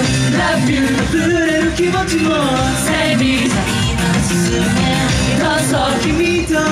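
Pop song with male group vocals sung into handheld microphones over the backing music.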